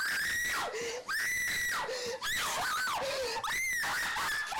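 A woman screaming in terror or pain, about four long, very high-pitched screams in a row, each sliding down in pitch before the next one starts.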